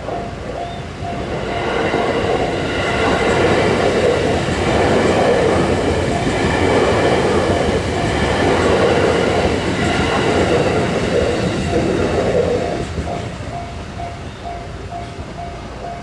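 Electric passenger train passing through a railroad crossing, its wheels clattering over the rail joints. It swells about a second and a half in and fades after about thirteen seconds. The crossing's warning bell dings about twice a second, heard at the start and again as the train fades.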